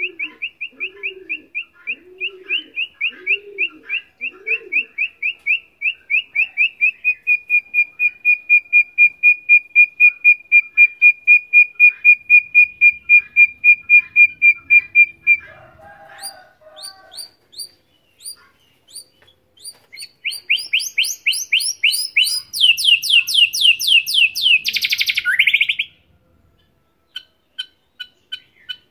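Young male white-rumped shama in song practice, still learning to sing. It gives a long run of quick notes repeated at one pitch, about three to four a second, for roughly fifteen seconds, growing a little faster and louder. After a short gap of scattered higher notes comes a rapid rising trill that ends in a loud downward sweep. A dove coos low in the background for the first few seconds.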